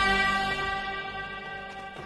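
Film background score: a held chord of several sustained notes, fading out steadily.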